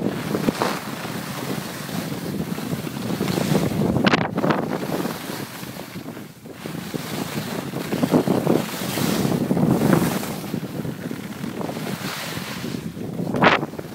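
Wind buffeting the microphone during a ski descent, mixed with the rushing hiss of skis sliding on groomed snow that swells and eases with the turns, and a short sharp swish near the end.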